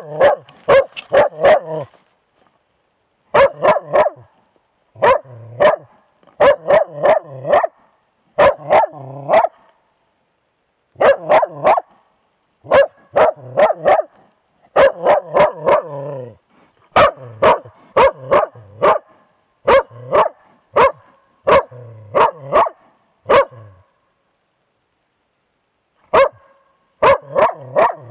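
Young moose-hunting dog bay-barking at a moose cow and calf, holding them at bay for the hunter. The barks come in quick runs of several a second with short pauses between, very close and loud from a camera on the dog's own body, with a break of about two seconds near the end.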